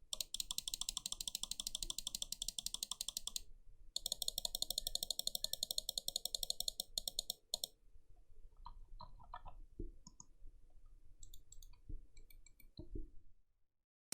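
Computer mouse buttons fitted with Kailh GM Red switches, clicked in two fast, even runs of about three seconds each, then a few slower single clicks.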